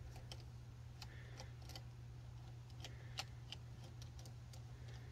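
Faint, irregular clicks and ticks of a plastic phone holder clamp as a phone is seated and settled in it by hand, over a steady low hum.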